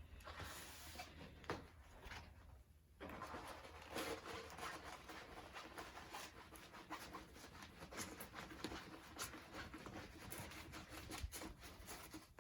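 Faint rustling and crinkling of a diamond painting canvas and its plastic cover film being handled and rolled, with many small clicks and scrapes.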